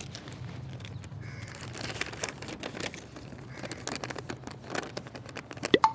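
A sheet of paper rustling and crinkling as it is unfolded and handled: a run of small, irregular crackles.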